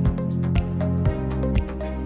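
Music with a steady beat of about two thumps a second under sustained held notes.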